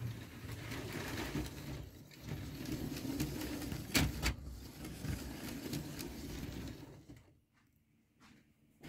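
LEGO 12V train running past on its metal-railed track: a steady motor and wheel rumble with two sharp clicks about four seconds in. It dies away about seven seconds in, leaving only faint ticks.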